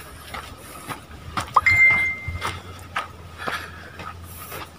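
Footsteps crunching on a dirt trail scattered with dry leaves, about two steps a second. About one and a half seconds in comes a short clear whistle-like note that rises and then holds steady for under a second; it is the loudest sound in the stretch.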